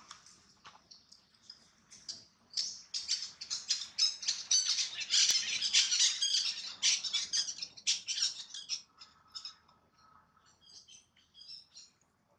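Long-tailed macaque giving rapid, high-pitched squeaking cries, loudest in the middle and thinning to scattered squeaks near the end.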